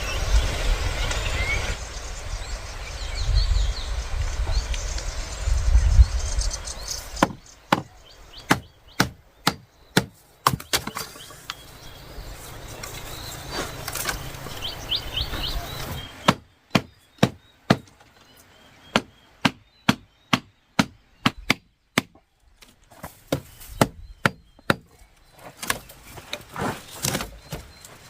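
A steady low rumble for the first several seconds, then a long series of sharp strikes on wood, about one or two a second.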